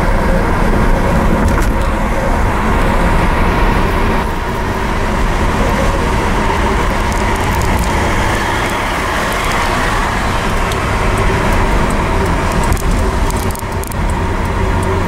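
Holden VR Commodore ute's V6 engine and tyre noise heard from inside the cabin, a steady drone while cruising at around 2,000 rpm and slowly easing down from about 80 km/h. The engine is running on a swapped-in VN V6 automatic engine computer.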